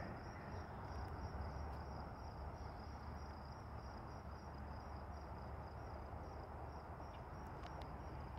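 Faint, steady high-pitched insect trill, cricket-like, over a soft low background rumble.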